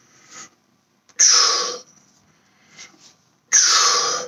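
Two forceful breaths out through the mouth, about two seconds apart, as a man pulls a resistance band up in upright rows, one exhale per pull.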